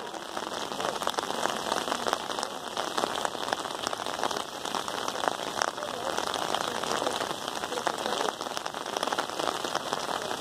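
Steady rain falling, many close drops ticking over an even hiss.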